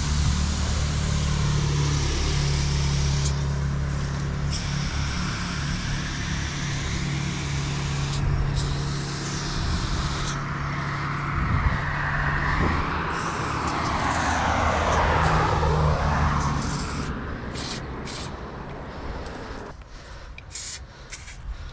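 Road traffic: a motor vehicle's engine hums low and steady, and a passing vehicle's rush swells and fades about two-thirds of the way through, then the traffic drops off near the end. Over it an aerosol spray can hisses in short bursts as paint goes on the wall.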